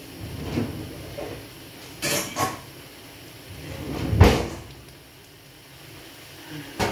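Knocks and clunks of a saucepan of boiled vegetables being handled: two quick knocks about two seconds in, a louder swelling clunk about four seconds in, and a sharp click near the end.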